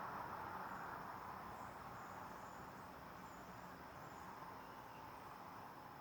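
Distant road traffic as a steady hiss-like hum picked up through a parabolic microphone, a little louder at first and then easing, with faint high-pitched insect chirps above it.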